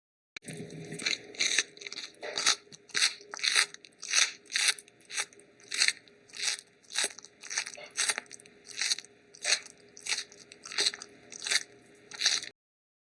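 An animal chewing, with crunching repeated a little under twice a second.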